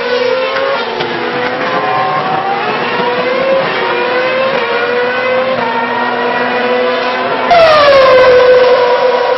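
2006 Formula One 2.4-litre V8 engines at high revs, several cars heard at once, their pitch rising and falling through gear changes. About 7.5 s in, one car becomes suddenly much louder, its pitch falling and then holding steady.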